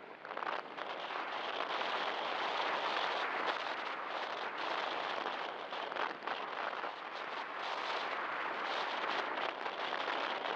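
Airflow rushing over the microphone of a camera carried on a radio-controlled glider in flight: a dense rushing noise that wavers in loudness, with a few brief dips.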